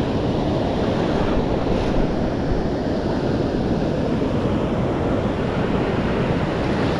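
Ocean surf breaking and washing in around the feet in shallow water, a steady rushing noise, with wind buffeting the microphone.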